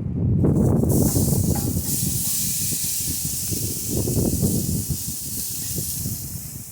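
Meat sizzling on a hot propane barbecue grill: a steady hiss that sets in about a second in, over a low rumble.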